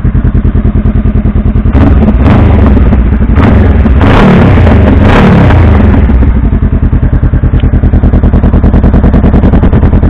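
Honda Rebel 500's parallel-twin engine running through an aftermarket K-Speed Diablo slip-on exhaust, heard close to the mufflers. It idles steadily, then from about two seconds in the throttle is blipped several times for about four seconds before it settles back to idle.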